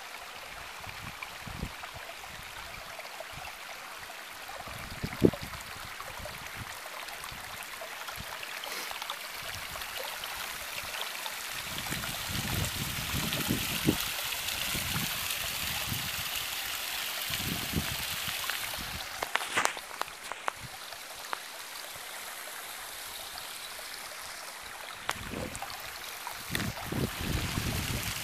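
Small mountain spring trickling and splashing down a rock face, a steady watery hiss that grows louder around the middle and eases off after. Scattered low thuds run through it.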